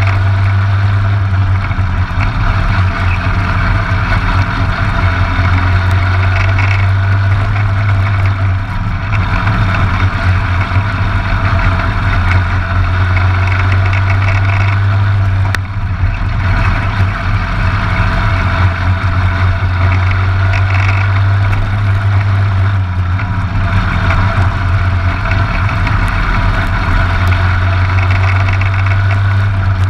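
Briggs & Stratton LO206 single-cylinder four-stroke kart engine running hard at racing speed. Its steady note dips briefly three times, about every seven seconds.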